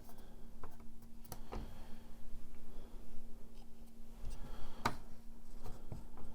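Scattered light clicks and scrapes of small plastic and glass instrument-cluster parts being handled and fitted, the sharpest click about five seconds in, over a faint steady hum.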